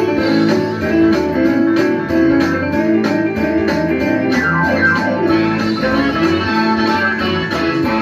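Guitar strummed in a steady rhythm, chords ringing on, with a few notes sliding in pitch a little past halfway.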